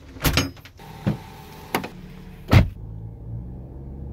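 A few sharp clicks and knocks of a door latch, then a heavy thud about two and a half seconds in, followed by the steady low rumble of a car running.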